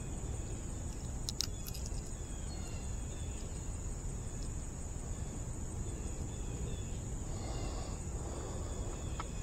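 Steady high-pitched drone of insects under a low rumble on the microphone, with a few sharp metallic clicks about a second and a half in from the fishing pliers being handled at the hooked fish.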